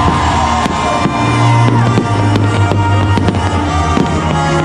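Fireworks bursting and crackling, several sharp bangs a second, over loud music played for the show.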